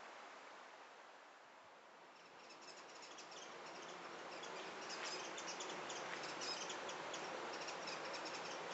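Rapid high-pitched chirping of insects, rising in about two seconds in over a steady outdoor background hiss.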